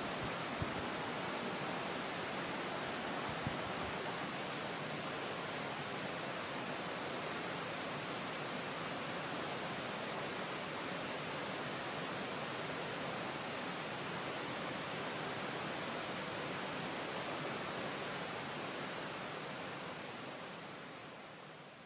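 Steady outdoor rushing hiss, a wide, even noise like running water or wind, with a couple of faint ticks in the first few seconds; it fades out over the last few seconds.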